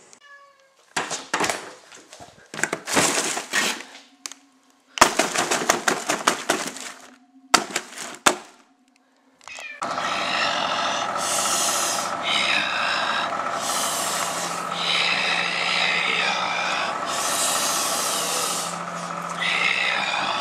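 A freezer drawer is pulled open and frozen food packaging is handled, giving a series of rustles and clatters with a few sharp clicks. About ten seconds in, a microwave oven starts running with a steady hum, and a higher wavering sound comes and goes over it every couple of seconds.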